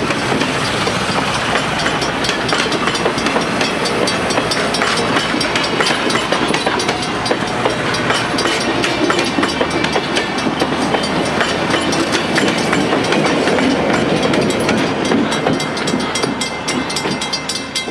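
Passenger cars of a diesel-hauled train rolling past close by, steel wheels clicking over the rail joints in a steady, loud rush of noise that eases slightly near the end as the last car clears.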